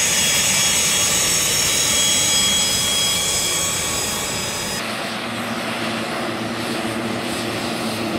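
HondaJet's twin turbofan engines whining as the jet taxis, a steady high whine over engine rush. About five seconds in it cuts to the lower, humming drone of a Piaggio P.180 Avanti's pusher turboprops while it taxis.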